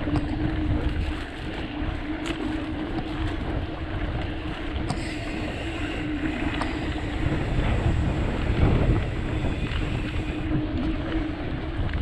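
Mountain bike rolling over a dirt trail: tyre rumble and frame rattle with wind buffeting the microphone, and a steady hum underneath.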